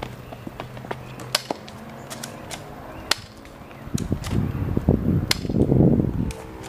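A few sharp snaps, a second or two apart, from a spring-powered Double Eagle P169 airsoft pistol being fired at targets. In the second half a louder low rushing noise comes in and drops away shortly before the end.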